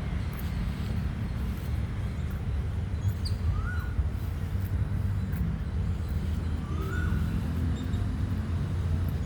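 Bird calls: a short call that rises and breaks off, given twice about three and a half seconds apart, with a few faint high chirps, over a steady low rumble.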